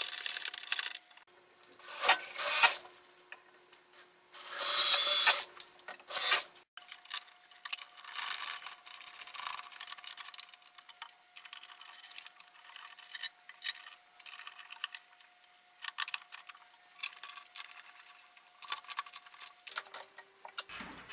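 Hand-working of barn-door rail hardware: rubbing and scraping of metal against the wooden ledger board and bolts, with a few louder scrapes in the first six seconds, then light clicks and taps.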